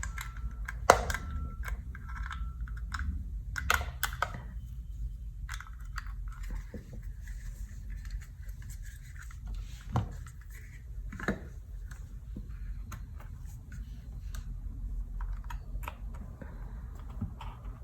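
Scattered small clicks, taps and rattles of a USB connector and drive being handled and plugged in, with a few sharper knocks about a second in and around ten and eleven seconds in, over a steady low hum.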